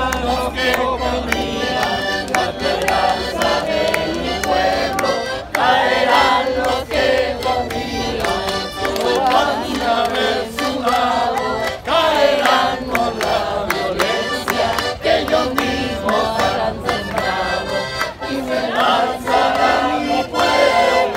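Piano accordion playing a tune, with voices singing along.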